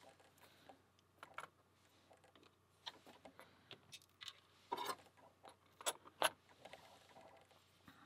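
Faint, scattered metallic clicks and taps of tweezers and a pick working inside a disassembled pin-tumbler lock cylinder, fishing out springs and pins, with a few sharper clicks around five to six seconds in.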